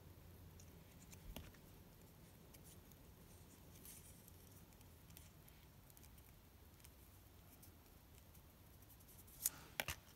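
Near silence with faint handling of cardstock strips being curled into loops by hand: soft scattered ticks and rustles. Two sharp clicks come near the end.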